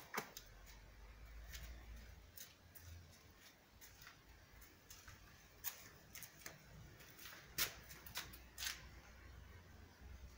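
Quiet room tone with a low hum and scattered light clicks and taps, the sharpest about three-quarters of the way through.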